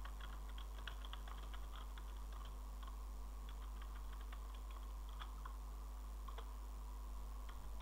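Computer keyboard being typed on: faint, quick, irregular key clicks over a steady low hum.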